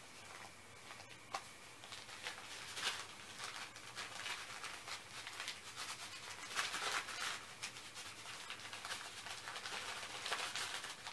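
Rustling and crinkling of a small paper-and-plastic packet being handled and worked open in the hands, in irregular bursts.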